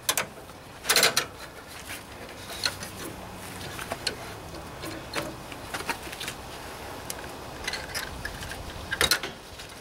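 Irregular metallic clicks and taps of vice grips and a steel extension spring knocking against the mower's transaxle linkage as the spring is worked into place, with a louder clack about a second in and another near the end.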